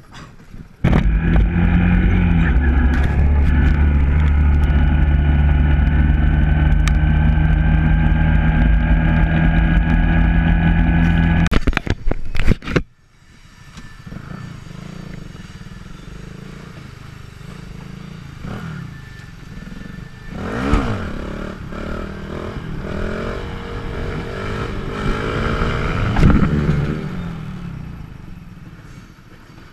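Motorcycle engine running loud and steady for about ten seconds, then cut off abruptly. After that, a quieter stretch of the same small motorcycle riding slowly, its engine revving up and back down a few times.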